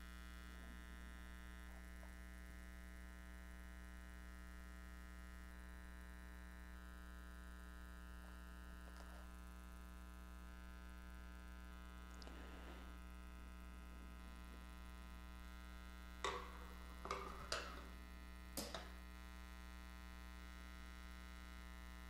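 Faint steady electrical mains hum, with a few short light taps and scrapes about three quarters of the way through from fingers working a cleaning patch smeared with abrasive bore paste on a steel bench.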